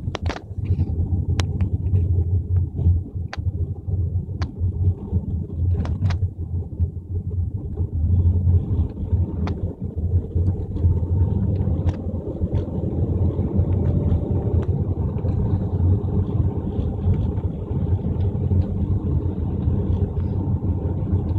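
Car interior noise while driving: a steady low engine and road rumble, with a few sharp clicks in the first six seconds.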